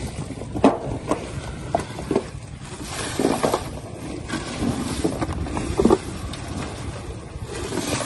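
Wind buffeting the microphone over a steady low rumble aboard a small fishing boat, with irregular knocks and clatter as fish, plastic crates and a bucket are handled on deck.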